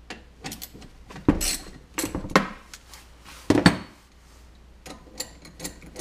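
Ratchet and socket working the 8 mm bolts off a Briggs & Stratton small engine's ignition coil, with metal tools clinking. There are a few sharp metal clinks in the middle, then lighter quick ratchet ticks near the end.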